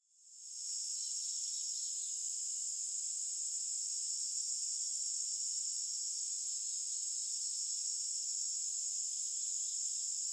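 A steady, high-pitched hiss with nothing in the low end, fading in over the first half second and then holding level.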